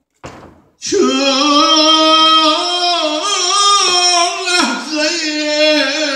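A man singing unaccompanied into a microphone: long held notes with small wavering turns, after a short breath just before the first second.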